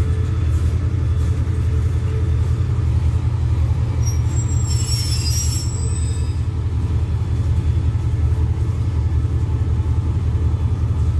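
Steady low diesel rumble of a passenger train standing at the platform with its engines idling. A brief high squeal comes about five seconds in.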